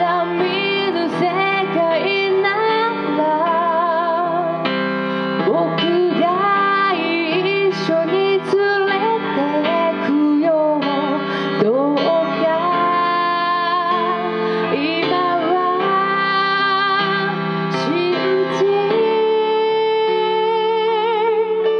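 A woman singing live into a microphone, with long held notes and vibrato, accompanied by an electronic keyboard.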